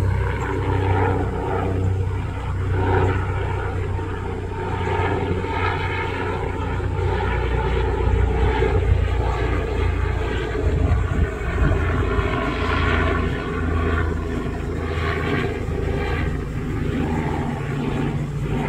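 Bell 407GXi helicopter flying by: the steady low beat of its four-blade main rotor over the rush of its turboshaft engine.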